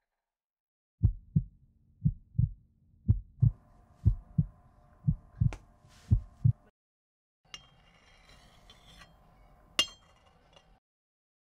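Heartbeat sound effect: low double thumps about once a second for around six beats, joined about halfway by a steady drone. Both cut off together, and a faint hiss with scattered clicks follows, with one sharp click near the end.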